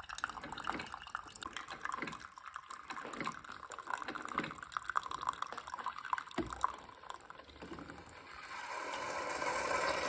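Keurig coffee maker dispensing brewed coffee in a thin stream into a mug, a steady trickling and splashing of liquid, which grows louder and fuller near the end of the brew.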